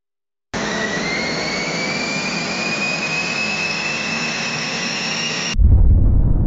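Designed sci-fi space sound effect: a steady hiss with a whine rising slowly in pitch, cut off abruptly about five seconds in by a deep, louder rumbling boom that begins to fade.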